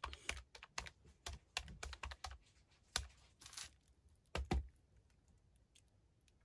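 Calculator buttons being pressed: a quick, irregular run of small clicks, then a few more taps about three and four and a half seconds in.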